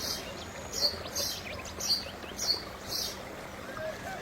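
A bird chirping over and over: short, high chirps about twice a second, with no words spoken.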